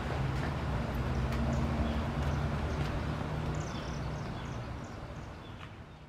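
Outdoor ambience: a low steady rumble with birds chirping now and then, fading out near the end.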